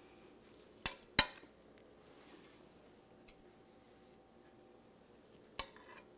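Metal fork and spoon clinking against a sheet pan and a ceramic plate as fried eggplant slices are lifted and set down. There are two sharp clinks about a second in, a faint tap a little after three seconds, and another clink near the end.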